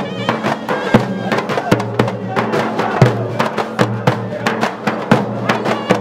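Tunisian folk music: large frame drums (bendir) struck in a steady beat under a sustained, droning reed wind instrument.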